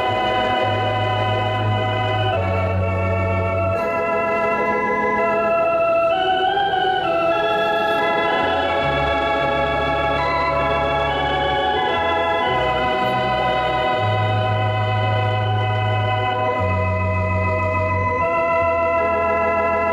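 Organ playing slow, held chords over a bass line that changes note every second or two.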